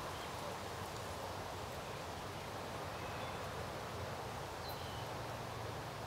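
Steady outdoor ambience, an even hiss with a low hum under it, with a few faint short bird chirps now and then.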